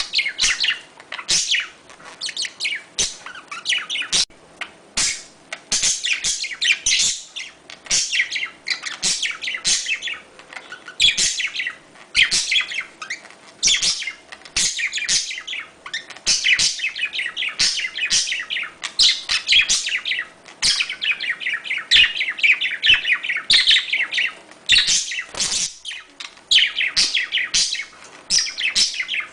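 Budgerigars chattering in a fast, unbroken run of high chirps and warbles, the courtship calls of budgies, with a few sharp clicks among them.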